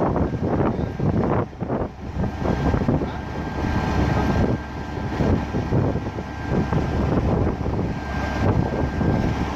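Caterpillar excavator working: its diesel engine running under load, with irregular knocks and clatter and a faint high steady whine. Wind buffets the microphone.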